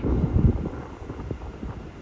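Wind buffeting the microphone in low, uneven gusts, strongest in the first half second, then dropping to a fainter rumble.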